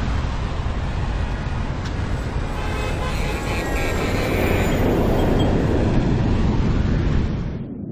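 A steady rushing noise that fades in at the start, swells a little, and dies away near the end.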